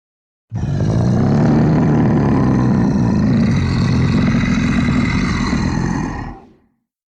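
Dragon roar sound effect: one long, low, rough roar that starts suddenly about half a second in, holds for about six seconds and fades out near the end.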